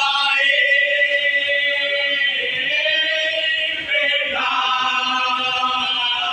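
Group of men singing a marsiya together in unison, unaccompanied, sustaining long drawn-out notes; the note changes about four seconds in.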